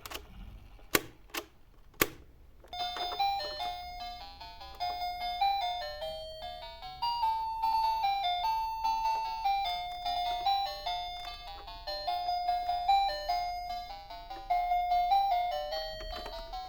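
Four sharp clicks, then a simple electronic tune of chime-like beeping notes that step up and down, like a toy's sound chip.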